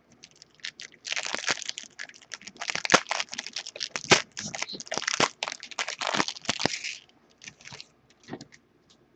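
Foil trading-card pack being torn open and crinkled by hand: a dense crackling rustle from about a second in until about seven seconds, then a few light clicks as the cards come out.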